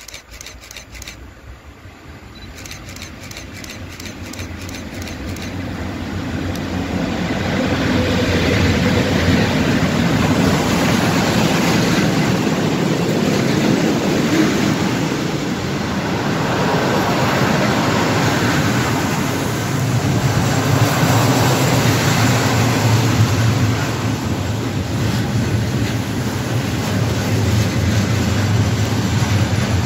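PKP Cargo ET41 electric locomotive pulling in with a train of open coal wagons. It grows louder over the first several seconds, then the wagons rumble and clatter steadily past on the rails.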